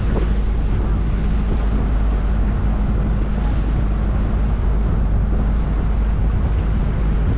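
Engine running steadily with a constant low rumble, with wind buffeting the microphone.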